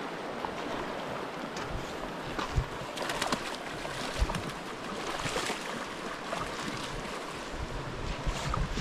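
Steady rush of creek water, with scattered splashes and wind bumping on the microphone.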